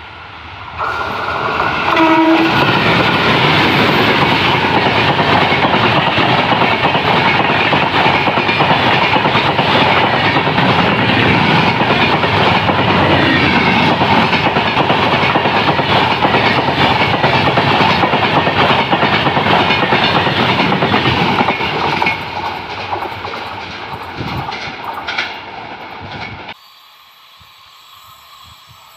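Electric-locomotive-hauled express train passing close by at speed: loud, steady rushing and clatter of the coaches' wheels over the rails, with a short horn toot about two seconds in. The noise eases after about twenty-two seconds and cuts off abruptly near the end.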